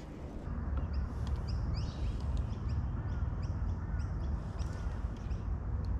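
Small birds chirping in a rapid scatter of short, high, rising notes, with a few softer arching calls in the middle, over a steady low rumble.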